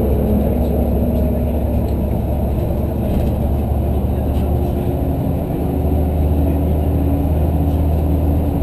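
Articulated city bus on the move, heard from inside the passenger cabin: a steady low drone of engine and road noise with a faint engine hum above it.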